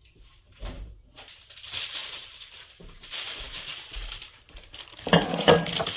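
A sheet of paper rustling and crinkling as it is handled and spread out, with a few sharper, louder crackles near the end.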